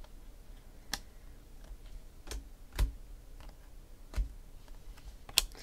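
Baseball trading cards being flipped through in the hand, the card edges giving about five short, sharp clicks at uneven intervals, the last near the end the sharpest.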